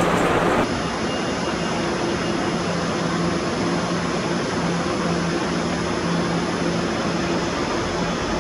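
Puyuma Express TEMU2000 tilting electric train standing at a station platform, its onboard equipment giving a steady hum with a faint high whine. A louder burst of the same noise cuts off abruptly about half a second in.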